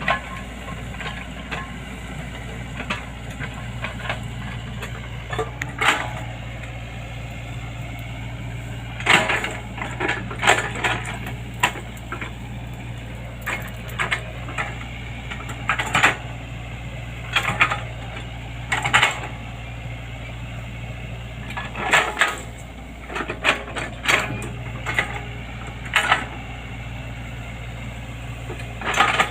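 Excavator engine running steadily while the machine works, with repeated sharp cracks and knocks, many of them in quick clusters from about nine seconds in.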